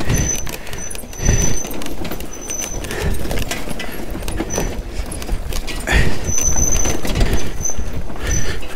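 Triumph Tiger 900 GT Pro adventure motorcycle moving over a rough forest dirt track: tyres and suspension rumble and knock over bumps and leaf litter. A thin high whistle comes and goes several times.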